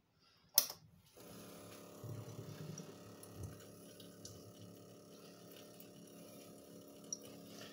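A sharp click about half a second in, then a small water pump starts about a second in and runs steadily with a hum, pushing water through a homemade jar-and-copper-pipe washing rig so that water pours from the outlet pipe into the sink.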